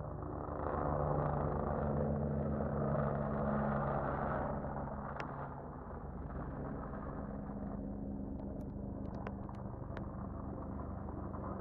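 Helicopter hovering overhead: a steady low drone of its rotor and engine that swells about a second in and eases off after about four and a half seconds. A few sharp clicks come in the second half.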